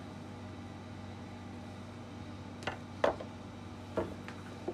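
Steady low hum, then a few sharp knocks and clinks in the second half, the loudest about three seconds in, as a glass mixing bowl is handled and scraped with a spatula.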